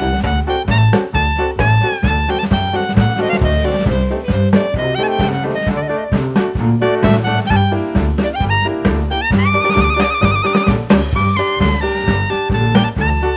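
Background music in a jazz style: a horn melody over a pulsing bass and drums, with one long note held with vibrato about two-thirds of the way through.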